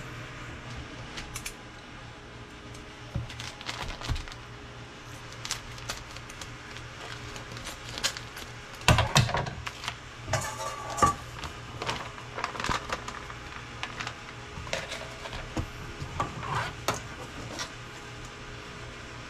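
Kitchen utensils and bowls clinking and knocking during tempura batter preparation: irregular taps and clatters, busiest about 9 to 11 s in and again around 16 to 17 s.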